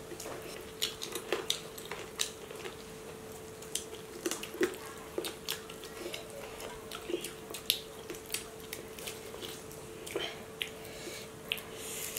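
Eating by hand from steel plates of biryani: chewing, lip-smacking and fingers working the rice make many small, irregular clicks and smacks. A steady faint hum runs underneath.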